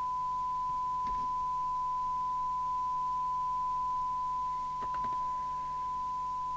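A Radiomobile CB201 FM CB radio's speaker giving a steady, pure tone of about 1 kHz: the receiver demodulating an S9 test signal from a signal generator, at the start of receive alignment.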